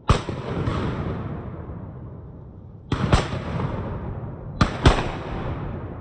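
Shotgun fire at passing ducks: a single shot, then two quick pairs of shots about a fifth of a second apart, as if two guns are firing almost together. Each blast rolls away in a long fading echo through the trees.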